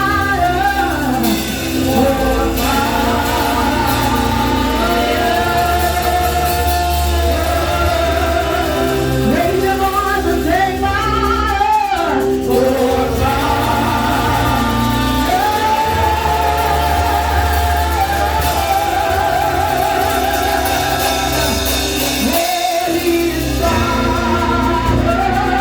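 Congregational worship singing with live band accompaniment: voices hold long sung notes over a steady bass.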